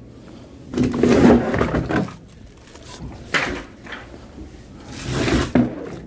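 Mesh bags of split firewood being dragged and handled on a truck's wooden bed, scraping and knocking. It comes in two bouts, about a second in and again near the end, with a sharp knock in between.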